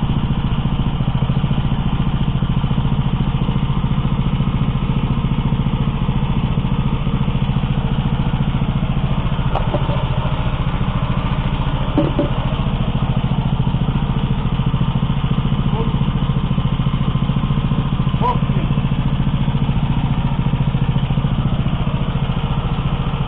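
Small petrol engine running steadily at an even speed, with no change in pitch or level.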